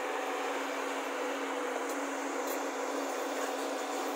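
Diesel engines of a tracked excavator and a loaded dump truck running at a work site, a steady drone with a faint constant hum.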